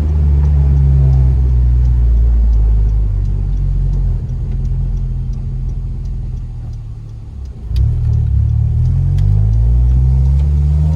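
Honda Civic Si's 2.4-litre four-cylinder engine and exhaust under way: running steadily, easing off and quieting for a few seconds, then picking up suddenly about eight seconds in and accelerating with rising pitch.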